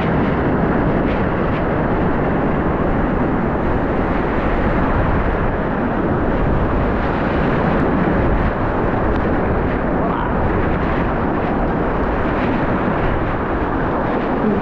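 Whitewater of a river in high flood rushing loudly and steadily, a continuous dense roar of rapids.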